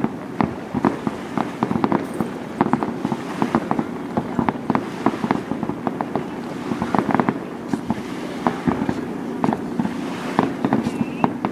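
Fireworks display: a rapid, irregular string of sharp bangs and pops, several a second, over a steady rumble.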